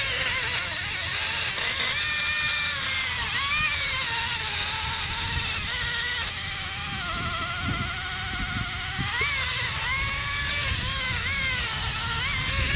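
Background music with a singing voice, over a steady low engine or power-tool drone.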